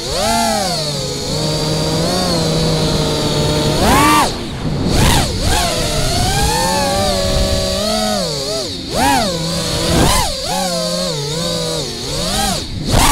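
An FPV racing quadcopter's 2207 brushless motors whine, the pitch rising and falling with the throttle. A steady cruise is broken by a sharp throttle punch about four seconds in, then by several quick punches and drops in the last few seconds.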